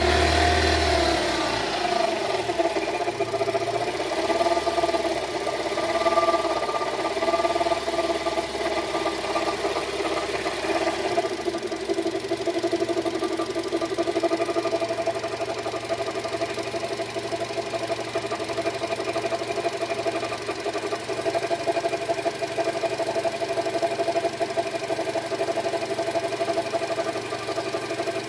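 Renault-Nissan H4M 1.6-litre 16-valve four-cylinder petrol engine running with a rapid knock that the owner is asking for help with at 52,000 km. Its speed wavers for the first ten seconds or so, then settles to a steady idle.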